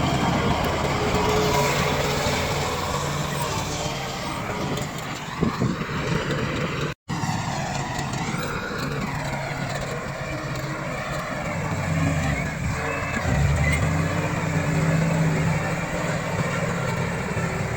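Komatsu D68 bulldozer's diesel engine working under load, its pitch rising and falling; the sound cuts out for an instant about seven seconds in.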